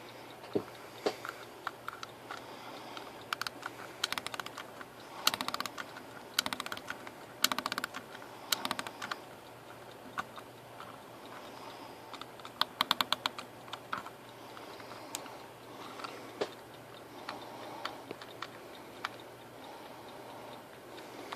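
Vintage Sure alarm clock being handled, giving irregular sharp mechanical clicks. Single clicks are scattered throughout, with several quick runs of rapid clicking like a ratchet being turned. There is no ringing.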